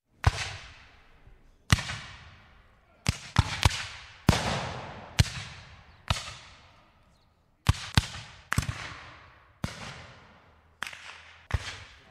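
Shotgun firing about fourteen shots at uneven intervals, some in quick runs of two or three. Each sharp report is followed by an echoing tail that fades over about a second.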